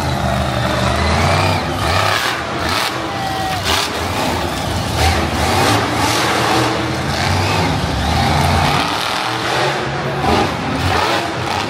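Monster truck engine revving hard and running as the truck drives about the arena floor and rears up onto its back wheels near the end, its sound echoing through the large arena.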